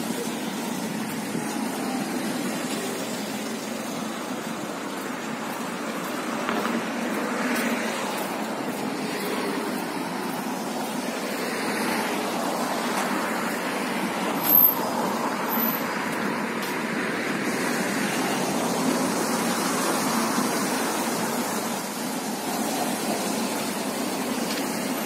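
City street traffic: a steady rumble of cars, buses and trucks passing, swelling and easing as vehicles go by. About halfway through, two short, very high-pitched beeps sound about a second apart.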